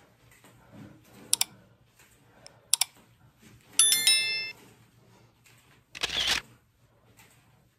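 Small metal clicks and a brief ringing jingle, as of handcuffs clinking during push-ups. There is a short noisy burst near the end.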